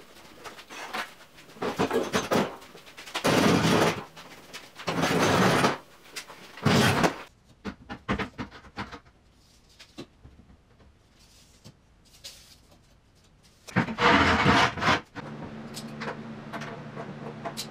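Plywood cabinet boxes being shoved and set in place on a concrete floor: a few loud scraping bursts about a second long, with knocks and clicks between them. A low steady hum starts about three-quarters of the way through.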